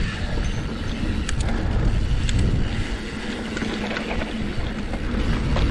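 Mountain bike climbing a dirt trail, heard from a body-mounted action camera: a steady rumble of tyres on dirt and wind buffeting the microphone, with a few sharp ticks from the trail or the bike.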